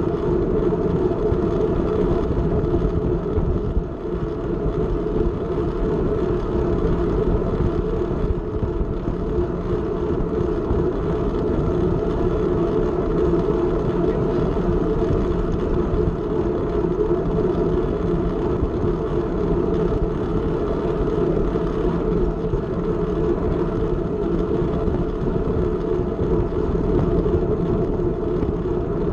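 Steady rush of wind on a bike-mounted camera's microphone, mixed with the rumble of bicycle tyres rolling on the track surface, as a track bike rides at racing speed.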